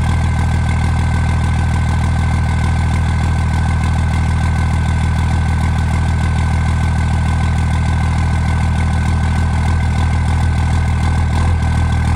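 2001 Dodge Ram's 24-valve Cummins 5.9-litre inline-six turbodiesel idling steadily just after a cold start in sub-freezing temperatures, following a start where it died once, which the owner puts down to the Air Dog lift pump losing prime.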